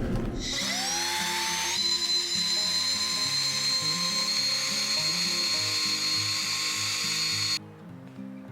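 A small electric motor whines up in pitch, runs at a steady high whine, and stops abruptly near the end, over background music.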